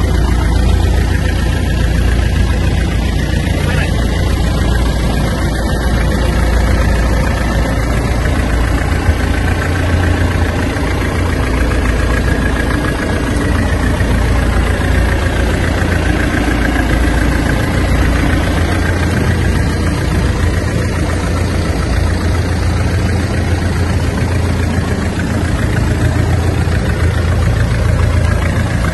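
Fishing launch's engine running steadily, a constant deep hum.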